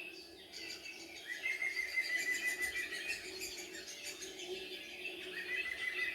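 Several songbirds singing and calling together, with two long trilled phrases, one starting about a second in and another about five and a half seconds in, over a faint steady low hum.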